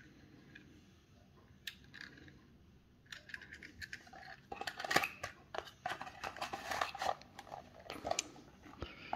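A few light clicks from handling a small die-cast toy car, then from about three seconds in a dense run of crinkling and crackling as packaging is handled.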